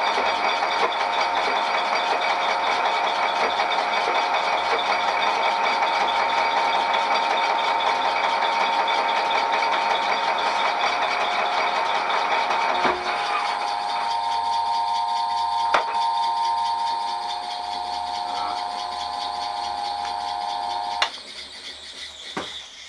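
Vintage South Bend 14-1/2" lathe running under power, a steady mechanical whine with rattling from its drive and gearing. About 13 seconds in a knock and the tone shifts; about 21 seconds in a sharp clack and the running noise drops away sharply, with a few more clicks near the end.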